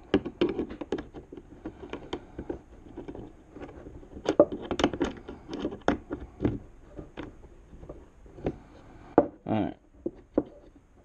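Irregular light knocks and clicks of hand work on a wooden workbench as a nut is run onto the mounting bolt of a bench clamp from under the bench.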